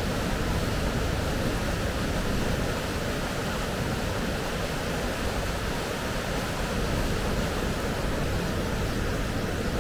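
Steady, even rush of whitewater from a waterfall and river, unbroken throughout.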